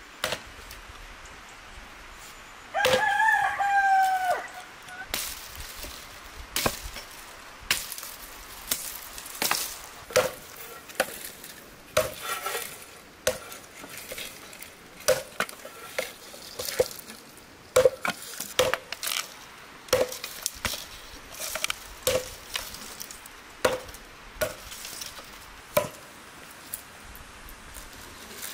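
A rooster crows once about three seconds in. Then dry branches are snapped and broken over a wooden stump for kindling, a sharp crack about once or twice a second.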